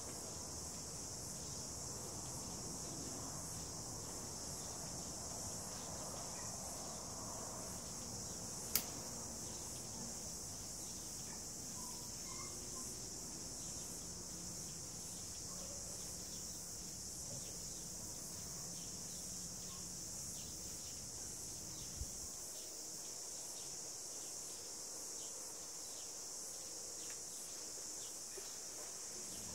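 Steady high-pitched chorus of insects shrilling outdoors. A single sharp click about nine seconds in and a softer knock later break through it.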